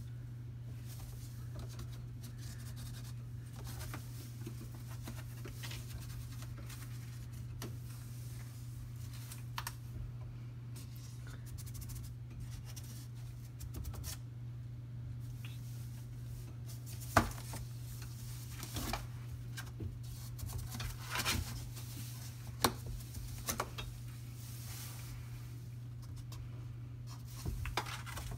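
Scattered scratches and sharp clicks from a Himalayan cat's claws and paws on a paper-lined wire closet shelf. They grow more frequent in the second half, with the loudest click about two-thirds of the way through, over a steady low hum.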